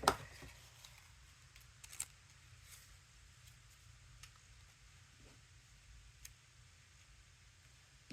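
Small craft supplies being handled and rummaged through: one sharp click at the start, then a few faint scattered clicks and taps over a low steady hum.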